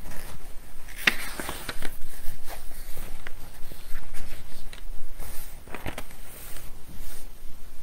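Rustling and light clicks of hands handling things on a desk, in two flurries: about a second in and again near six seconds.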